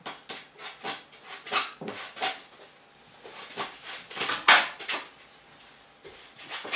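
Lemon peel being grated on a flat hand grater: a run of short, irregular scraping strokes, mixed with clinks of kitchen dishes.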